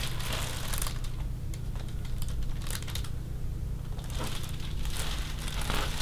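Paper sheet on a chiropractic table's headrest crinkling in scattered rustles as the patient's head is shifted and cradled, over a steady low room hum.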